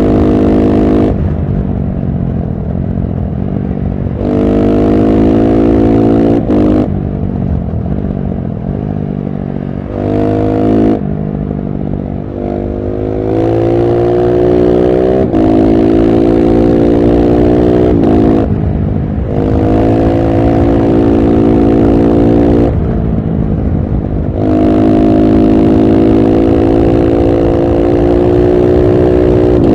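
KTM SMC-R 690's single-cylinder engine through a LeoVince One Evo slip-on exhaust, pulling hard under throttle again and again, its note climbing slightly in each pull. The note falls away briefly about ten times where the throttle is shut or a gear is changed.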